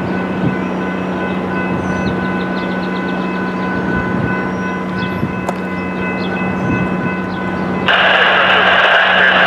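A train approaching out of sight: a steady drone with several held tones, then a loud hissing rush that starts suddenly near the end.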